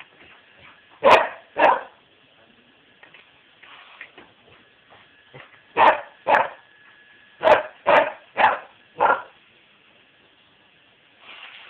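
Dog barking at a vacuum cleaner: two sharp barks about a second in, then a quick run of six more a few seconds later.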